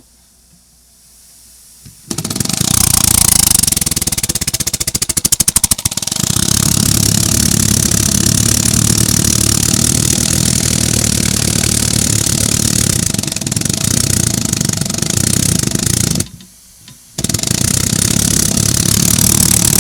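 3D-printed compressed-air piston engine starting about two seconds in, its strokes quickening over the next few seconds into a fast, steady run with a loud hiss of air and a rattling clatter. The sound drops away for under a second near the end, then picks up again.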